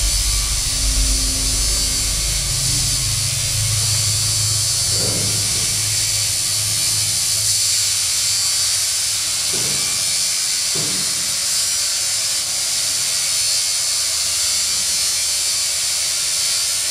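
Live electronic noise music: a loud, steady high hiss and buzz over a low drone, with a few short low swells about five and ten seconds in.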